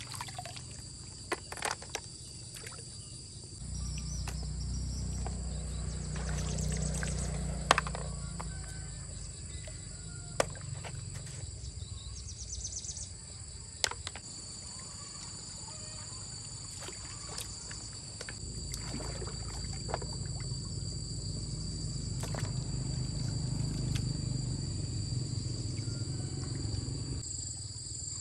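Shallow stream water sloshing as hands rake through the mud for freshwater snails, with a few sharp clicks as snail shells are dropped into a plastic basin. Insects keep up a steady high drone throughout.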